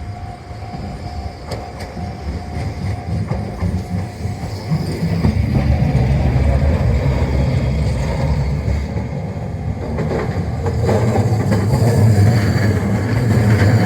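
Streetcar passing close by: a low rumble of wheels on the rails that grows louder about five seconds in, with clatter and some wheel squeal.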